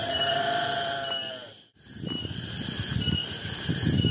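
A chorus of cicadas (tonggeret) singing in a high, steady drone that swells and fades in a regular pulse, a little under one beat a second. For the first second and a half a long held call with overtones sounds over it. The sound cuts out briefly about halfway through, then comes back with low knocks and rumbles underneath.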